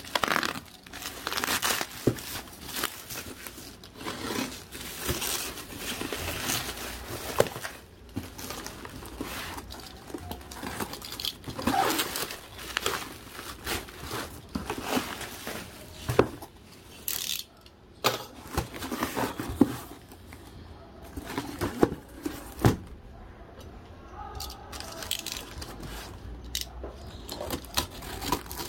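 Plastic bubble wrap crinkling and tearing as it is pulled off a cardboard box, then a blade scraping through packing tape and cardboard seams. Irregular rustling throughout, with frequent short sharp clicks.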